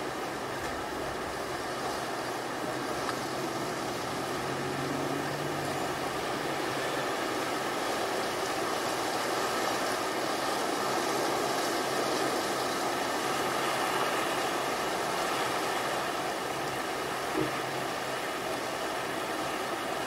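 Gulf of Mexico surf washing in steadily as distant waves, swelling a little toward the middle. A faint low hum rises briefly about a quarter of the way in, and there is a single short tap near the end.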